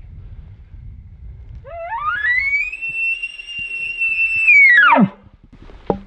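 A single elk bugle: a whistle that climbs in steps to a high note, holds it for about two seconds, then drops steeply into a low ending about five seconds in.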